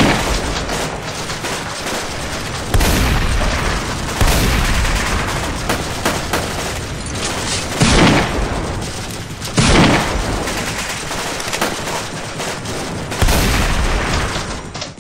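Gunfire sound effects: a continuous rapid crackle of shots, with about six heavier booming blasts spread through it.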